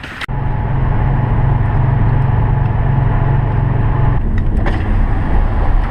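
Vehicle engine with a loud exhaust running, coming in suddenly about a third of a second in. It holds a steady low drone, then drops to a lower pitch about four seconds in.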